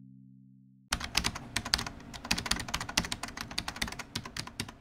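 A held music chord fading out, then from about a second in, rapid, dense clicking like typing on a computer keyboard: a typing sound effect laid over the video's end card.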